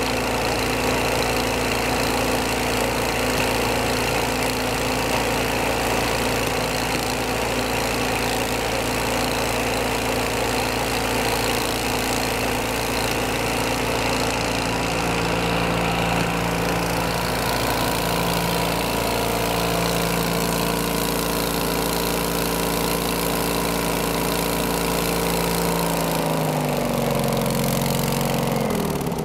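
Small air-cooled engine on a field/nut elevator, driving its hydraulic pump and running at a steady speed. Its pitch drops over the last few seconds as the engine slows down.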